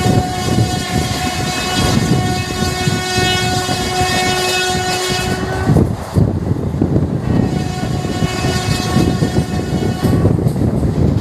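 WAP4 electric locomotive horn sounding two long blasts on one steady pitch, the first about six seconds and the second about three. Under them is the constant rumble and clatter of ICF coaches running over the rails at about 120 km/h.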